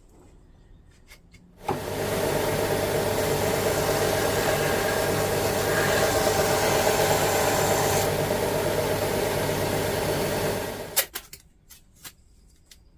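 An electric workshop power tool starts about two seconds in, runs steadily for about nine seconds, then winds down and stops, followed by a few light knocks.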